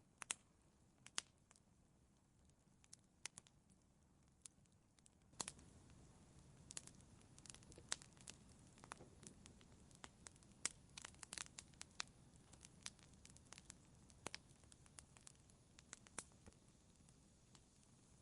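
Wood fire in a fireplace crackling faintly: sharp pops at irregular intervals over a low hiss. About five seconds in, the hiss rises and the popping gets busier.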